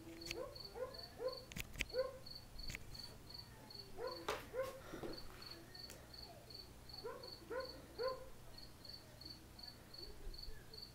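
Dogs barking in short runs of three or four barks, three times over, above a cricket chirping steadily at about three chirps a second.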